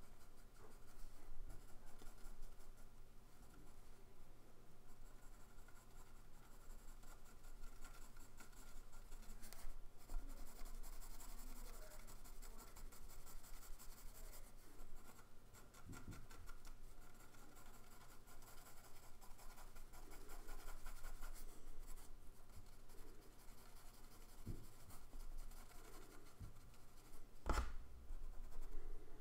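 Pencil shading on sketchbook paper: faint, uneven scratching strokes of the lead on the page. A single sharp knock near the end.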